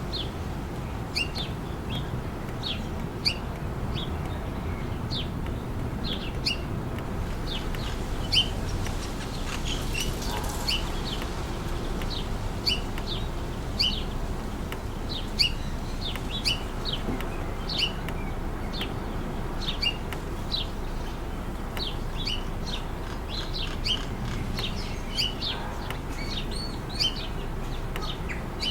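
Birds chirping over and over in short, high calls, several a second, over a steady low rush of wind.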